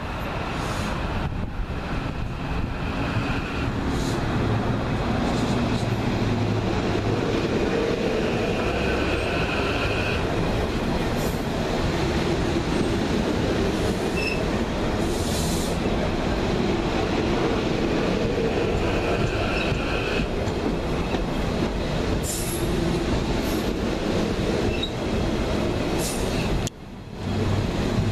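Amtrak Keystone passenger train passing at speed: a steady rumble of wheels on rail, with a high squeal from the wheels that comes and goes. The sound breaks off briefly near the end.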